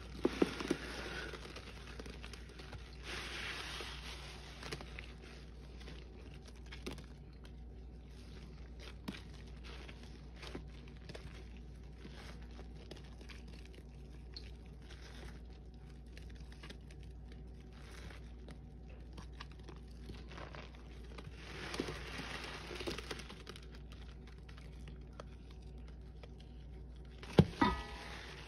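Wet sponge full of Lime Ajax cleanser foam squeezed and kneaded by gloved hands in a stainless steel bowl: fizzy crackling of suds with squelching squeezes, louder about 3 s in and again around 22 s, and a couple of sharp squelches near the end.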